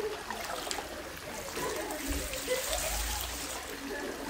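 Hot-spring water trickling steadily into an open-air bath, with light splashing as a hand dips into the water to test its temperature.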